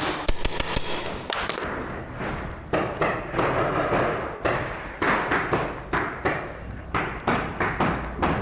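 Paintball markers firing: a string of sharp pops and thuds at an irregular pace, about two or three a second.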